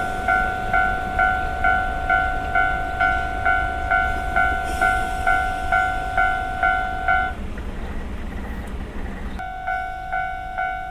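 Level-crossing warning bell ringing, a steady ding about two strikes a second, over the low rumble of a DE10 diesel-hydraulic locomotive moving past with its wagons. The bell stops about seven seconds in, leaving the locomotive's diesel engine running, and starts again near the end.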